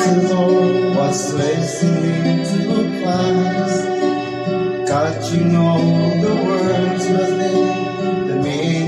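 A song with singing over guitar accompaniment.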